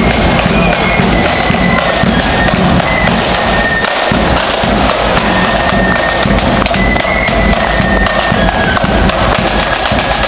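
Marching flute band playing: flutes carry a high melody over rapid snare drum strokes and a bass drum beat, loud in a large hall.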